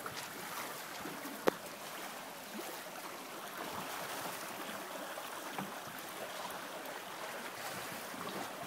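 Water washing and lapping against a moving boat's hull, a steady soft wash, with one sharp click about one and a half seconds in.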